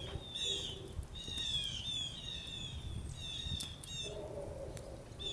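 Small birds chirping: short chirps, each falling in pitch, repeating many times, often overlapping.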